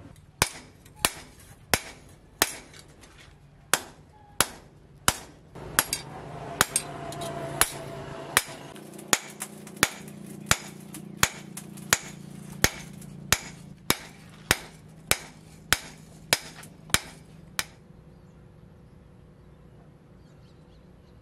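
Hand hammer forging a red-hot steel farmer's knife blade, cut from a disc plough, on an anvil: sharp, evenly spaced ringing blows about one and a half a second, stopping a few seconds before the end.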